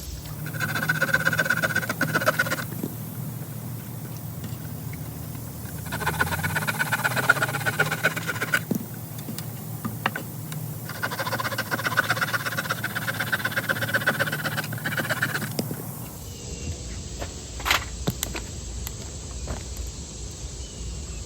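Small folding saw blade of a Victorinox Fieldmaster Swiss Army knife sawing through a pine branch in three bouts of quick back-and-forth strokes, with short pauses between them. A single sharp click comes near the end.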